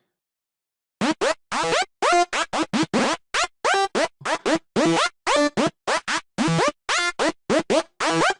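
Sylenth1 software-synth psytrance night full-on lead playing a fast run of short, choppy notes, starting about a second in. Each note sweeps upward in pitch because its envelope is set to attack instead of decay, which gives a reversed effect.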